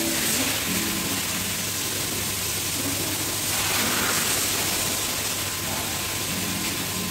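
Pressure washer at work in a car-wash bay: a steady hiss of water spray over the constant hum of the washer machinery, with a louder rush of spray about three and a half seconds in.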